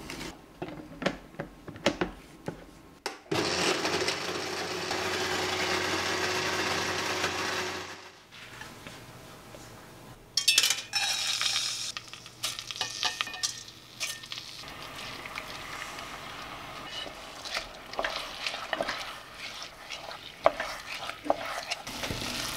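A countertop blender runs steadily for about five seconds and cuts off. Then soaked glutinous rice and abalone innards hiss into hot sesame oil in a stainless steel pot, followed by a spatula scraping and knocking as it stir-fries the rice.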